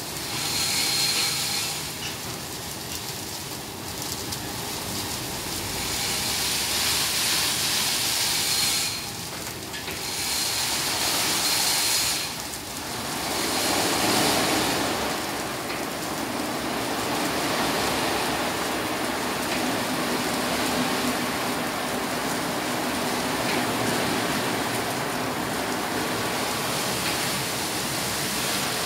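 Automatic rollover car wash running: spinning brushes scrubbing a car amid water spray, a steady wash of hissing noise. Three louder surges of spray hiss come in the first half, after which a fuller, lower churning of the brushes and machine holds steady.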